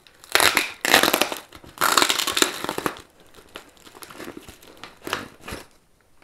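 Adhesive plastic packing-list pouch being peeled and torn off a cardboard shipping box, with crinkling plastic. Two loud ripping pulls in the first three seconds, then shorter, softer crinkles.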